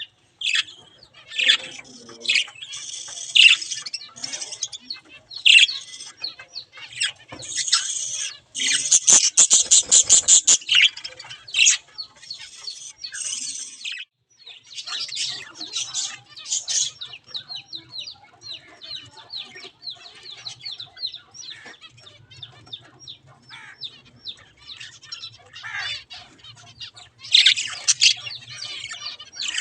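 Flock of budgerigars chattering and chirping continuously, with a louder, denser flurry about nine to ten seconds in.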